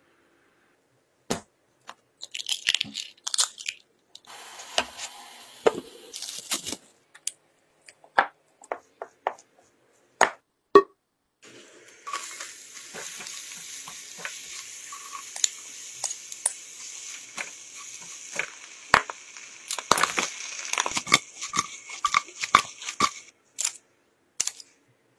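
Kitchen cooking sounds: short crackles and knocks in the first half, then minced garlic sizzling steadily in melted butter in a pan from about halfway, with stirring clicks over it. The sizzle stops a couple of seconds before the end.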